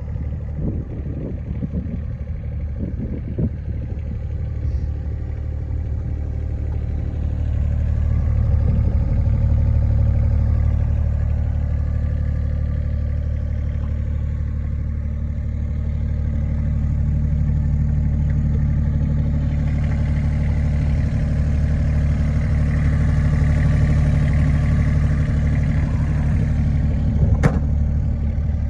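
Takeuchi TB210R mini excavator's diesel engine running steadily. It grows louder about seven seconds in, and a higher whine joins around twenty seconds in. There is some clatter at the start and a single sharp knock near the end.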